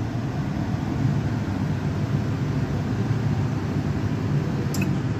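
Three-group La Marzocco espresso machine's pump running steadily while a shot extracts into a cup on a scale, giving a low, even hum. A light click comes near the end.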